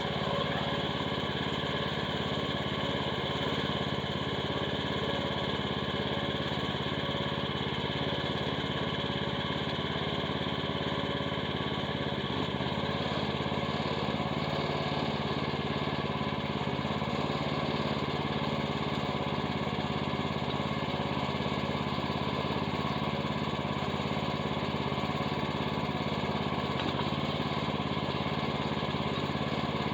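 Small engine of a Chinese mini excavator running steadily at a constant speed while it powers a wood splitter attachment.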